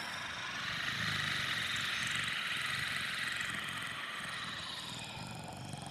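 A steady hissing rush of noise that swells over the first second or two and then slowly fades.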